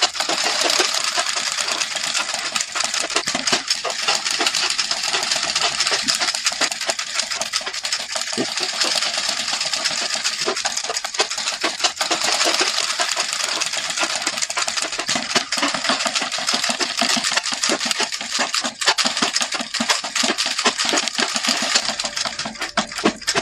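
Antique sewing machine running steadily, its needle and feed mechanism making a fast, continuous clatter that stops abruptly at the very end.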